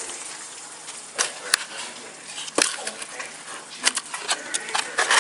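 An egg frying in a pan with a steady sizzle. Several sharp clicks and clinks of a utensil against the pan, more of them near the end.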